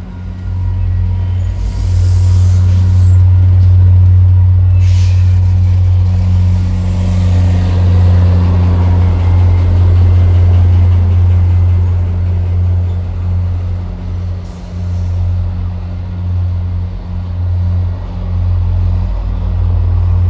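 Diesel locomotive running close by with a loud, steady low rumble, broken by several short hisses of air from the brakes.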